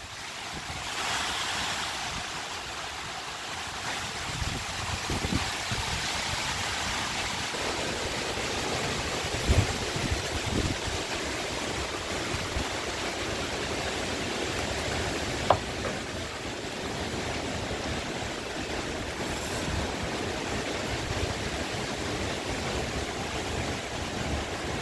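Steady rushing noise of strong storm wind through trees, with gusts buffeting the microphone. Two brief knocks stand out, about ten and fifteen seconds in.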